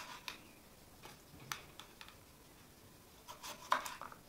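Kitchen knife slicing a cucumber on a wooden cutting board: crisp cuts with the blade tapping the board. A few single cuts come first, then a quicker run of them near the end.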